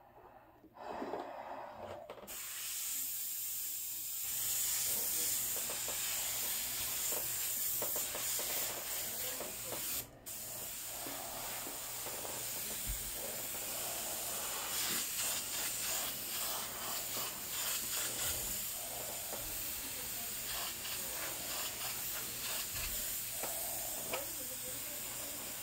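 Airbrush spraying paint onto a T-shirt: a steady hiss of compressed air that starts about two seconds in and breaks off briefly about ten seconds in.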